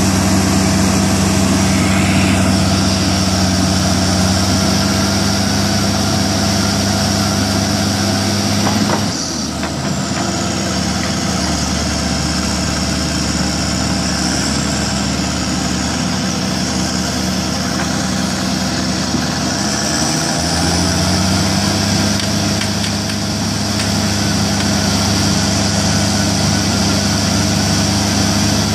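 Heavy diesel engines of a Caterpillar excavator and a stuck Caterpillar crawler running steadily while the excavator works at the bogged machine, with a steady high whine over them. The engine note drops about nine seconds in and comes back up about twenty seconds in.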